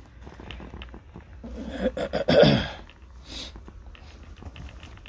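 A man sneezes once, loudly, about two seconds in; the sneeze's voice falls in pitch at the end. A few light knocks and rustles come before and after it.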